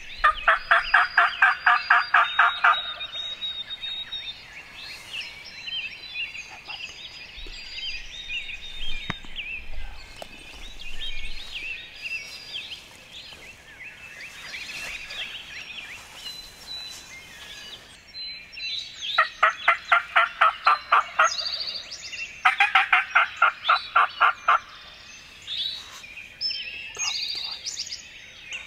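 Wild turkey gobbler gobbling three times: one loud rattling gobble at the start and two more about two-thirds of the way through. Songbirds chirp throughout.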